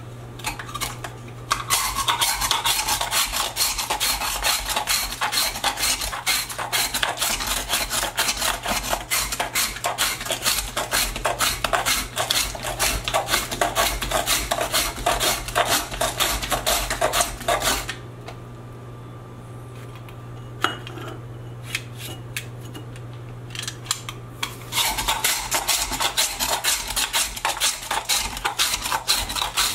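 Handheld metal ice shaver scraped rapidly back and forth across a block of ice, shaving it for raspados, in quick continuous strokes. The scraping stops for several seconds a little past halfway, with only a few scattered strokes, then starts again.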